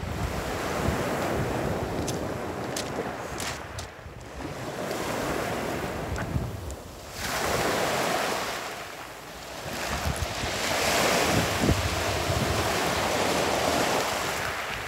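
Sea waves washing in, swelling and fading every few seconds, with wind buffeting the microphone.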